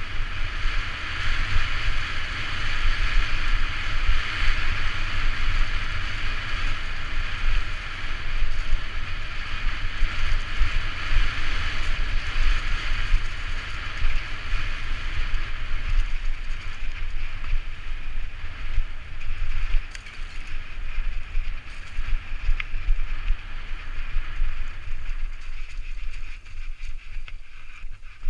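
Wind buffeting a helmet-mounted camera's microphone over the tyres of an enduro mountain bike rolling fast down a dry, leaf-covered dirt trail, with a few small knocks from the bike. The hiss of the tyres thins out over the last few seconds.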